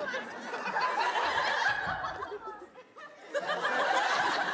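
Studio audience laughing. The laughter dies away a little past halfway and picks up again about a second later.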